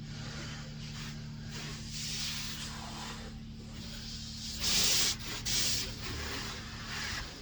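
A car being hand-washed: a series of hissing, rubbing strokes over its body, loudest about five seconds in, over a steady low hum that cuts off near the end.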